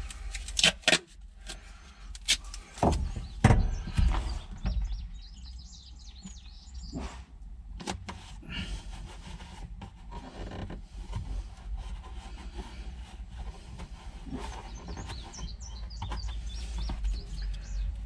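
Hands working with a roll of duct tape on the plastic air-conditioning housing: scattered clicks, knocks and rustles, loudest in the first four seconds, with birds chirping in the background.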